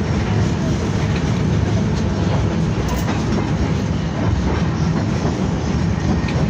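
BKM-60102 tram running along its track, heard from inside the passenger cabin: a steady low rumble of wheels on rails and running gear.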